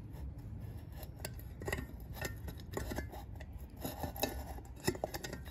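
Irregular small metallic clicks and scrapes as a metal ceiling canopy is pushed up over its screw heads and twisted so they slide from the wide end to the narrow end of its keyhole slots.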